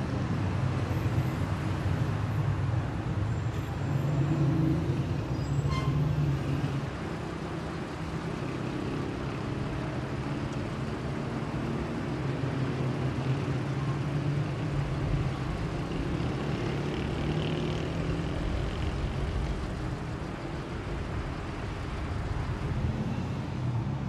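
City street traffic: a steady hum of vehicle engines running and passing, a little louder in the first several seconds.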